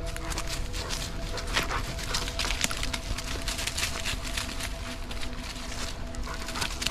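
Footsteps crunching and rustling through dry fallen leaves and twigs on a forest trail, a quick irregular run of crackles, with steady background music underneath.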